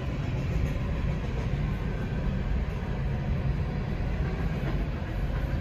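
A passing train rumbling steadily and heavily, with no horn.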